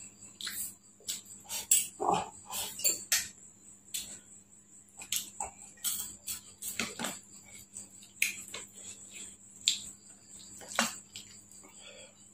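Close-up eating sounds: a man chewing a mouthful of rice, with irregular wet lip smacks and mouth clicks and occasional spoon clinks against a glass bowl.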